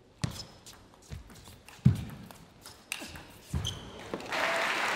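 Scattered knocks and bounces of a table tennis ball and the players' footsteps between points, the loudest a thump a little under two seconds in. Applause starts about four seconds in.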